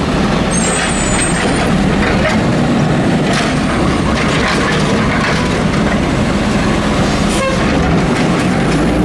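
Automated side-loader garbage truck's engine running at a steady drone while its arm lifts a wheelie bin, tips it into the hopper and sets it back down, with a couple of sharp knocks along the way.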